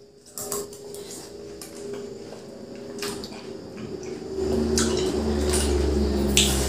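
Metal spoons scraping and scooping the flesh of halved watermelons, with small clicks of spoon against the fruit. From about four seconds in, a louder steady low hum joins in.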